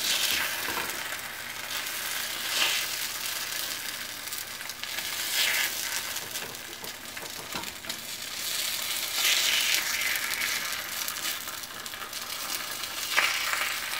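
Egg paniyaram sizzling in oil in a paniyaram pan, a steady hiss that swells louder every few seconds as the balls are turned over with chopsticks, with a few light ticks of the chopsticks on the pan.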